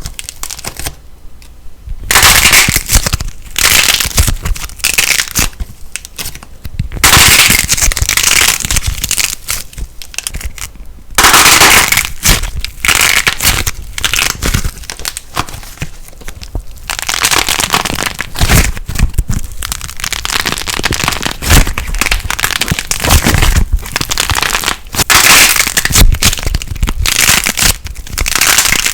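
Light plasticine being squeezed and pressed, crackling and popping densely in bouts of a few seconds with short breaks between.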